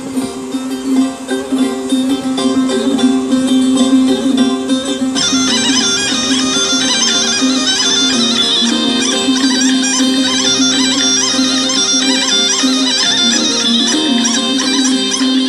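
Background music over a steady low drone, with a bright, high melody line coming in about five seconds in.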